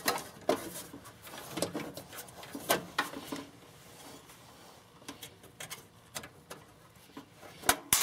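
Furnace control compartment cover being handled and fitted into the cabinet: scattered light clicks, knocks and metallic clatter, with the loudest knocks near the end.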